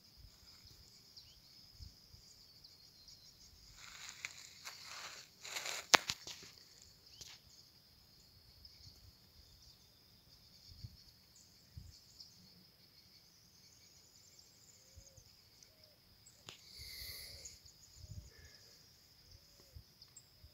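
Faint outdoor ambience with a steady high chirring of insects throughout. A few seconds in there is some rustling, then a sharp click, the loudest sound, with a shorter burst of noise near the end.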